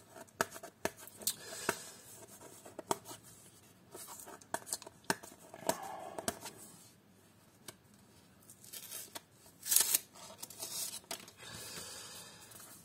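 Paper and card handling: a folded paper sleeve rustling and scraping as brand-new collector cards, stuck together, are worked out of it and prised apart. There are scattered small clicks, and a louder burst of paper noise about ten seconds in.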